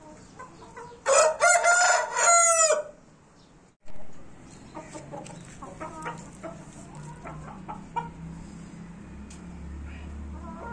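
A game-fowl rooster crows once, a loud call of about a second and a half that ends on a falling note. After a break, chickens cluck softly, with scattered short clicks and a low hum underneath.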